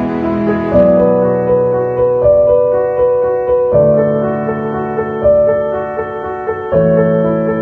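Background music: slow, gentle piano or electric keyboard playing sustained chords that change roughly every second and a half.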